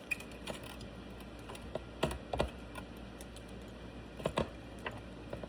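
Printed plastic support material being snapped and picked off a 3D-printed part by hand: an irregular scatter of small, sharp clicks and cracks.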